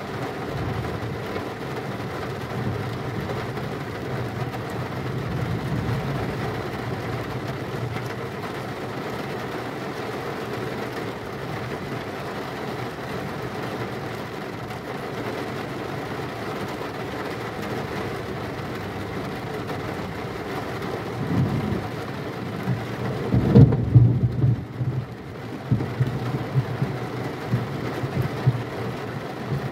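Heavy rain falling steadily under a low thunder rumble. About 21 seconds in, thunder swells, then comes a louder clap with rolling rumble from about 23 to 26 seconds that keeps breaking out in uneven peaks afterward.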